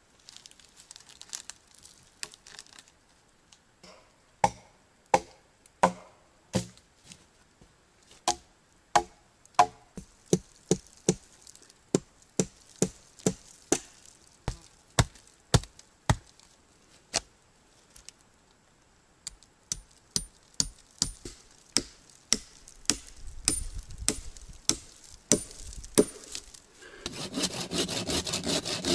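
An axe chopping into a log: a long series of sharp wooden strikes, about one to two a second, with a short pause midway. Near the end a saw starts cutting through wood in steady back-and-forth strokes.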